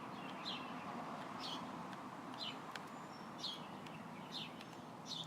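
A bird chirping about once a second, each call a short note sliding down in pitch, over a low steady hum.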